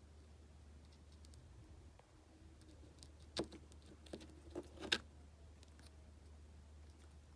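A few light clicks and clinks, like small parts being handled, with the loudest about three and a half seconds and five seconds in, over a low steady hum.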